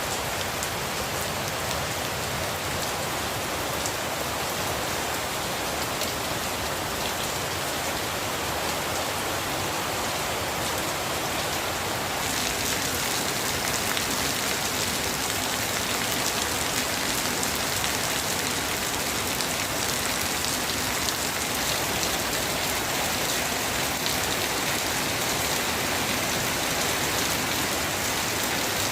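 Steady rainfall, a dense even patter that grows a little heavier and louder partway through.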